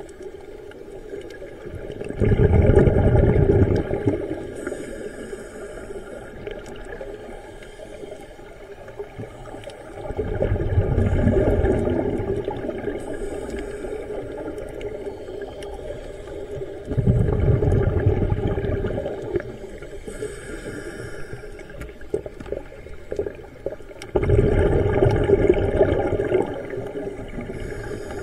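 Scuba diver breathing through a regulator underwater: four bubbling bursts of exhaled air, about seven seconds apart, each lasting about two seconds. Fainter inhalation hisses fall between them.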